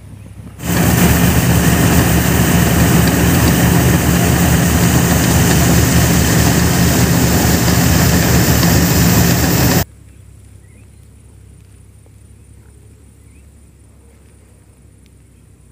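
Farm machine's engine running loudly while maize grain pours from its unloading spout, a dense steady rush with a low hum. It starts suddenly and cuts off suddenly after about nine seconds, leaving only faint outdoor background.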